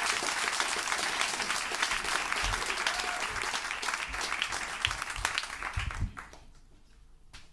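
Audience applauding, dying away about six seconds in. A few low thumps sound under the clapping.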